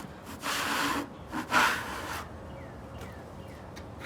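Hand or brush rubbing across the freshly sawn face of a sycamore slab, two rough sweeping strokes to clear sawdust off the grain, followed by a quieter stretch.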